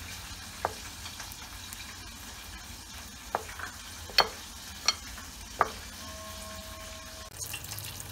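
Breaded chicken pieces deep-frying in hot oil, a steady sizzle, with a handful of sharp clicks through the middle.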